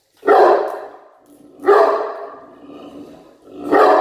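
Crated dog barking: three loud barks, one soon after the start, one about a second and a half later and one near the end. These are reactive barks at another dog's movement.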